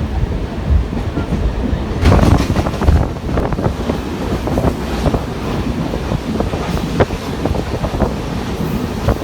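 Mumbai suburban local train running, with a steady rumble and a rattling clatter of wheels over rail joints. The clatter is louder about two seconds in.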